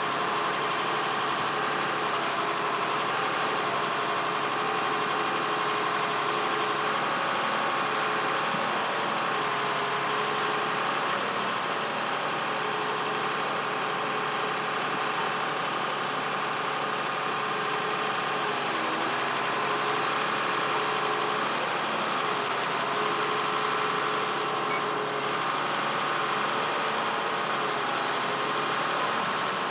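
Heavy machinery engine running steadily, with a steady hum of higher tones over it that fade and return.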